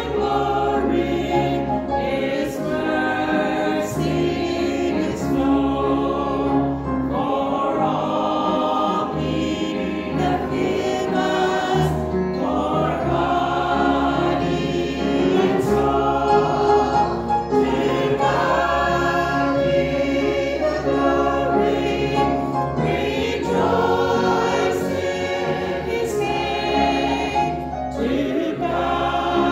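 Church congregation singing a gospel hymn together in continuous phrases, with instrumental accompaniment underneath.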